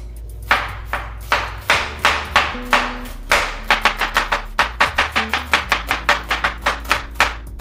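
Knife chopping onions in a run of sharp strokes that start about half a second in and quicken to about four a second.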